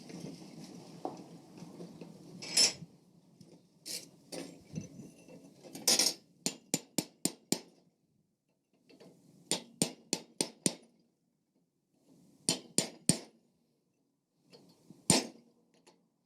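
Hand hammer striking steel on an anvil, forging out the antler points of a stag's head: single blows and quick runs of three to six ringing strikes with short pauses between them.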